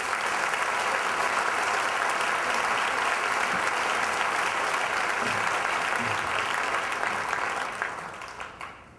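A large audience applauding steadily. The clapping swells in at the start, holds for about eight seconds and dies away near the end.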